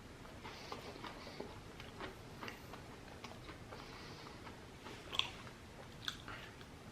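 Faint close-up chewing and biting of fried shrimp: soft crunches and mouth clicks, with two sharper crunches about five and six seconds in.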